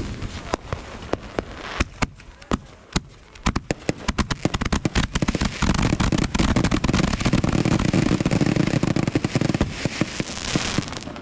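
Fireworks going off: separate sharp pops and bangs at first, then, about halfway through, a dense rapid barrage of bangs and crackle that lasts several seconds before easing near the end.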